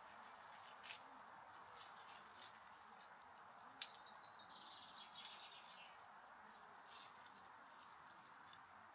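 Quiet countryside ambience: a faint steady hiss, with a short warbling bird call about four seconds in and a few scattered soft ticks, the sharpest just before the call.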